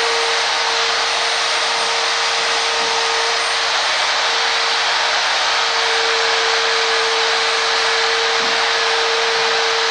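A handheld rotary grinder running steadily with a constant mid-pitched hum, its hiss of abrasion on the surface of a metal sculpture.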